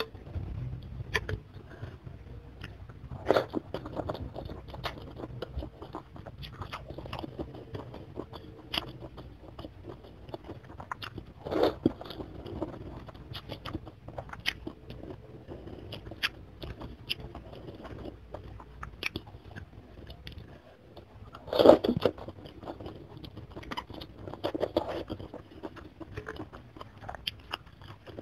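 Close-miked eating sounds of chicken soto with glass noodles: chewing, biting and crunching, noodle slurps, and the click of fork and spoon in the bowl. Three louder bursts stand out: about three seconds in, near the middle, and about three-quarters through.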